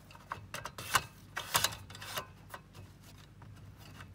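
Aluminium rod clicking and rattling as it is wiggled through the holes in the legs of a roll-up aluminium camping table: a run of light clicks and taps over the first couple of seconds, then fainter ticks.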